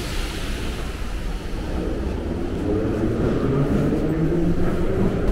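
Metro train heard from inside the car: a steady low rumble with a motor hum that grows louder from about two seconds in as the train gets under way.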